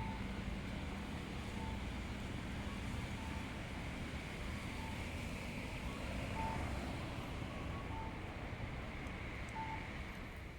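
Street traffic running steadily, with a short electronic beep repeating about every one and a half seconds.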